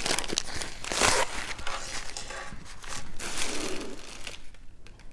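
Plastic packaging crinkling and rustling as it is unwrapped and handled, loudest about a second in and dying away about four seconds in.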